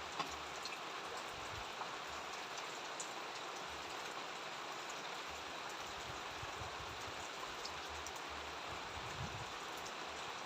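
Steady rain falling, an even hiss with scattered light drop ticks and occasional low rumbles.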